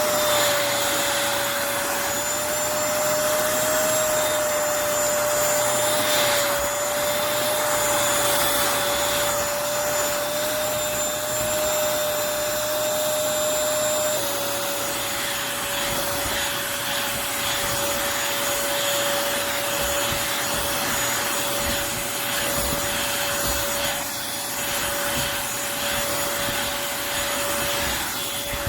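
Eureka NES212C corded stick vacuum cleaner running with a steady motor whine and rushing airflow. Its pitch dips slightly about halfway through.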